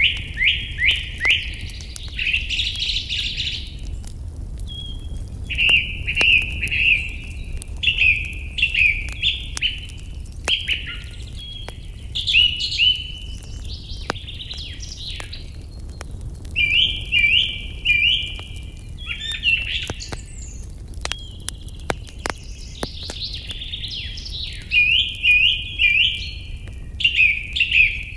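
A songbird singing in repeated phrases of quick, chirping notes, with short pauses between phrases. Fire crackling sounds underneath as scattered faint snaps over a steady low rumble.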